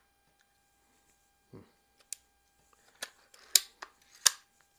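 Daisy 188 spring-air pistol being cocked: a series of clicks and snaps from its hinged top and mechanism, the two sharpest about three and a half and four and a quarter seconds in.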